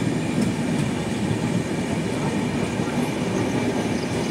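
Passenger train running along the broad-gauge track, heard from aboard a coach: the steady running noise of the wheels on the rails.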